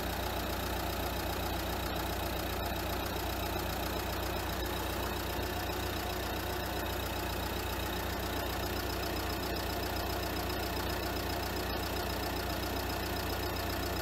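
Renault Kangoo's 1.5 dCi diesel engine idling steadily with a replacement alternator fitted. The alternator's bearing noise is gone.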